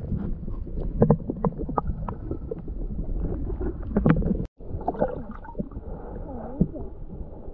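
Muffled underwater sound through an action camera's waterproof housing: water movement with scattered clicks and knocks. The sound cuts out briefly about four and a half seconds in.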